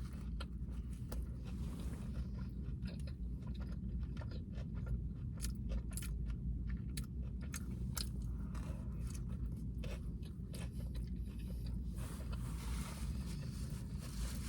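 A person chewing tacos close to the microphone: irregular, scattered mouth clicks over a steady low hum.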